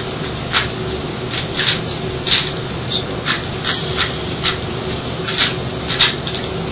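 QJ 2x3x3 Domino puzzle cube being turned by hand: its plastic layers click and scrape about twice a second with each turn, a little stiff. A steady faint hum runs underneath.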